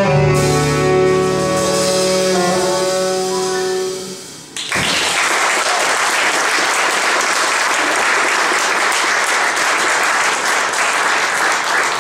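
Small jazz ensemble of two saxophones and piano holding a final chord that fades out about four seconds in. Then the audience applauds steadily until the end.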